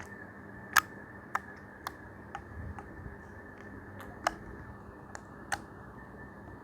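Homemade slime being squeezed and pressed by hand, giving about a dozen sharp, irregularly spaced clicks and pops over a steady low hum, the loudest click about a second in.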